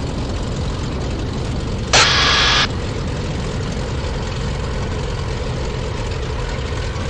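The Cessna T310R's twin turbocharged piston engines idling at low RPM while the plane taxis, a steady low drone. About two seconds in, a sharp burst of hiss lasts under a second and cuts off suddenly.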